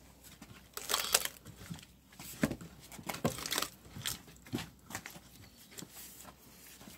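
Splitting maul wrenched back and forth in a partly split cypress round, the wood creaking and cracking in irregular sharp snaps as the fibres tear, the loudest about a second in.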